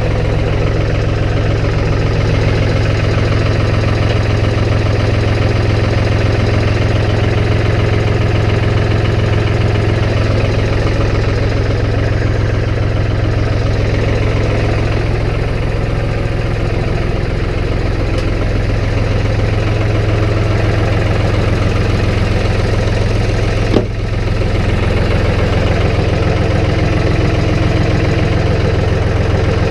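Snow-plowing vehicle's engine running steadily at a constant low hum, with a single brief click late on.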